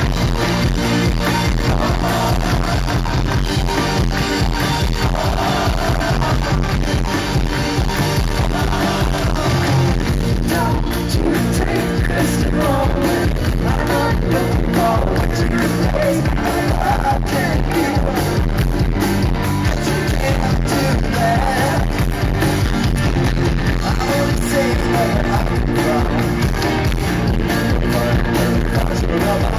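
Live rock band playing loudly with a singer, as heard in a distorted, overloaded audience recording.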